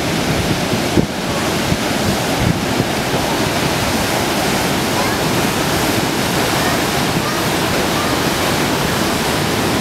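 Heavy ocean surf, with waves of 8 to 12 feet breaking, heard as a steady, continuous wash of crashing water.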